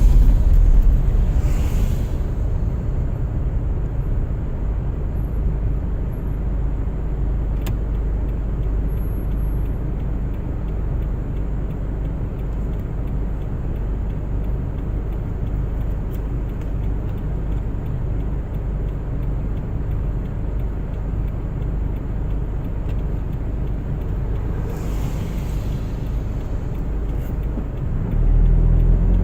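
Car driving on a winter road: a steady low rumble of engine and tyres, which grows louder, with a clearer engine note, about a second before the end.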